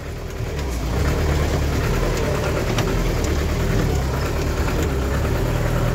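Bus engine running with a steady low drone that grows louder over the first second and then holds steady.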